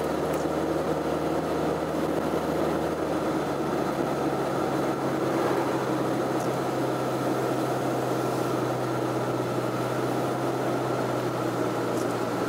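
Steady drone of a car's engine and tyres heard from inside the moving car, with a low engine hum that changes about three seconds in.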